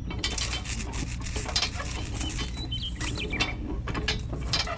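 Small toy tractor's geared motor running, with fast irregular clicking and rattling of plastic gears and parts over a steady low hum.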